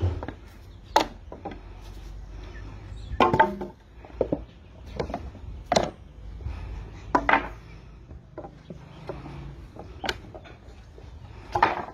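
Wooden pallet being broken apart with a homemade long-handled pallet breaker: a run of sharp wooden cracks and knocks, about one a second, as the boards are levered off.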